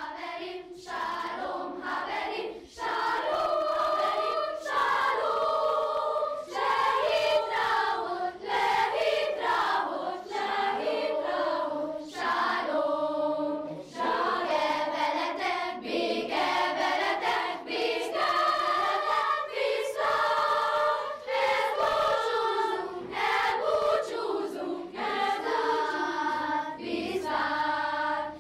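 A children's school choir singing.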